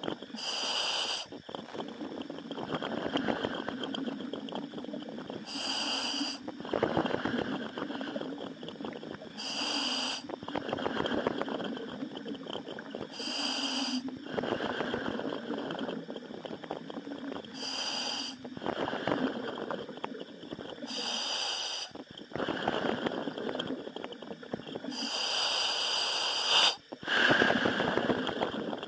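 A commercial diver breathing through a helmet over the diving radio: a short high hiss of the demand regulator about every four seconds, with rougher exhaling and bubbling noise in between.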